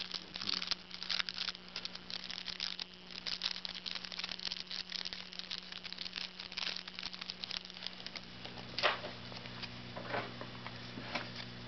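Football trading cards and their plastic and foil packaging being handled: irregular crinkling and rustling, with a sharper click about nine seconds in, over a steady low hum.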